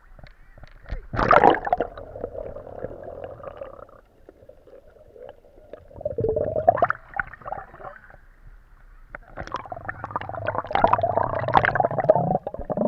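Sea water around a camera plunged underwater: a splash about a second in, then muffled underwater gurgling and churning that swells twice, around six seconds and again from about nine to twelve seconds.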